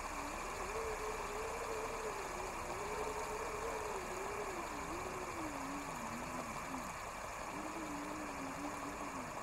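A steady droning ambience with a single tone that wavers slowly up and down in pitch.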